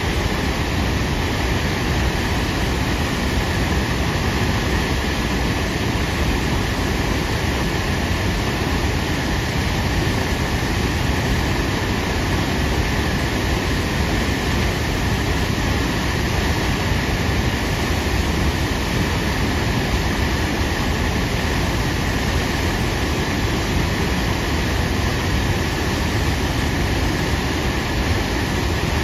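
Tahquamenon Falls' Upper Falls: a wide waterfall pouring over its ledge, a loud, steady rush of falling water, deepest in the low end.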